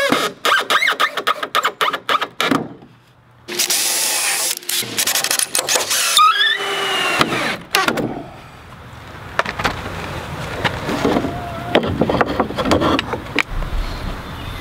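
Cordless drill driving screws into pine boards, with a bar clamp being worked on them. Squeals that rise and fall in pitch, and clusters of clicks and knocks; the loudest squealing comes in the middle.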